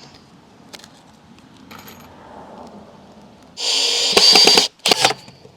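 A cordless drill runs for about a second, driving a screw into wood, followed by two short bursts near the end.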